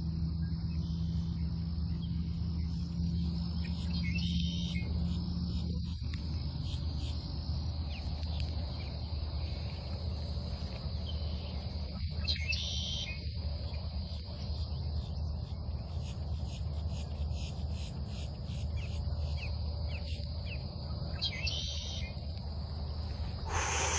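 Steady high-pitched chirring of insects over a continuous low hum, with three short calls of a bird spaced several seconds apart.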